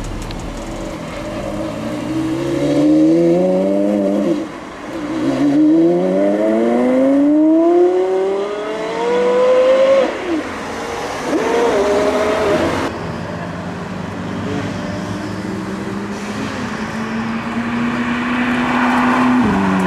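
Porsche Carrera GT's naturally aspirated V10 accelerating hard, its note climbing in long rising pulls through the gears with breaks at the shifts, then a short rev. In the second half another supercar's engine holds a steadier, slowly rising note.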